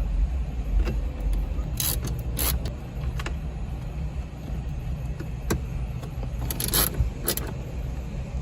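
Several short clicks and scrapes of plastic trim and parts being handled and fitted inside a car's dashboard, over a steady low rumble.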